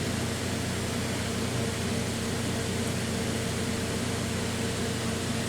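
Fluxeon Roy 1500 induction heater running at full power: a steady fan-like hiss with a low, even electrical hum underneath.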